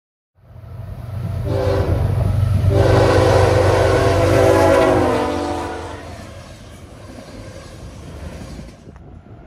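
A diesel locomotive's multi-chime air horn sounds a short blast and then a long one over the low rumble of a train. The horn's pitch drops as it passes, and then the train's rumble carries on more quietly.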